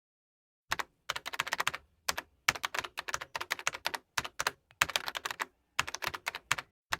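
Rapid keyboard typing: quick clicks in short bursts, about eight runs of keystrokes broken by brief dead-silent pauses.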